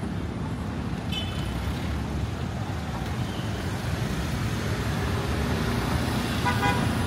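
City street traffic noise: a steady low rumble of passing motor vehicles, with a short high-pitched beep about a second in and a brief pitched tone near the end.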